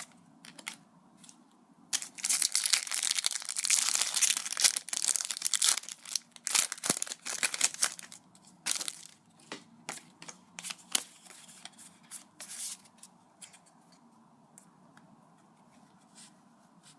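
A foil Pokémon booster pack wrapper being torn open and crinkled, a dense stretch starting about two seconds in and lasting about four seconds, followed by scattered crinkles and light clicks of the pack and cards being handled that die away a few seconds before the end.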